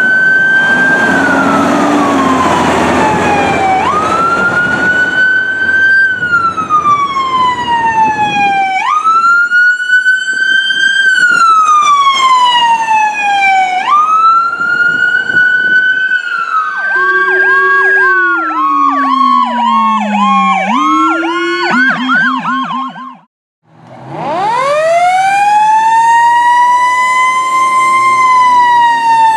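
Electronic emergency sirens on a fire engine and a battalion chief's SUV pulling away on a response: long wail cycles rising and falling every few seconds, at first over the fire engine's engine and road noise. Past the middle the siren switches to a rapid yelp while a lower tone slides down. It then cuts out briefly and a new wail rises.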